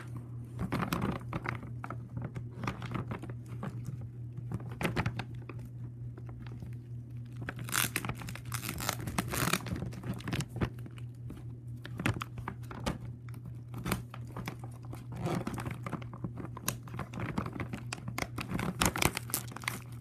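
Packaging being torn and crinkled by hand as a hard-to-open package is worked at: irregular crackling and rustling with denser flurries about eight seconds in and again near the end.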